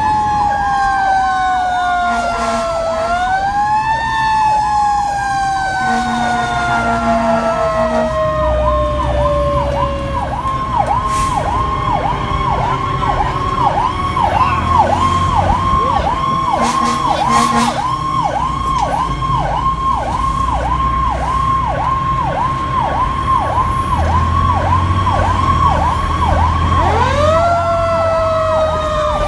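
Fire engine siren heard from inside the truck: a slow falling and rising wail, switching about eight seconds in to a fast yelp that runs until a rising wail returns near the end, over the low rumble of the truck's engine.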